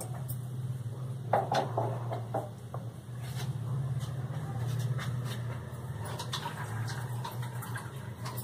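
Silicone spatula stirring flour in a glass bowl, with scattered scrapes and light knocks against the glass, densest between about one and two and a half seconds in. A steady low hum runs underneath.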